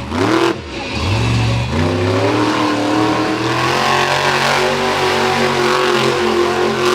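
Monster truck engine revving, its pitch sweeping up twice in quick blips, then held at high revs with the pitch climbing slowly.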